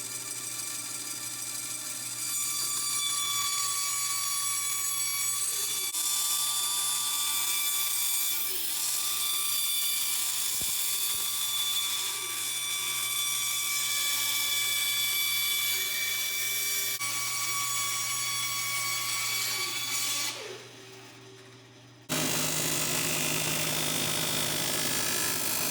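Small power tool motor running with a steady high whine, broken by abrupt changes a few times; near the end a quieter moment gives way to a noisier, hissing machine sound.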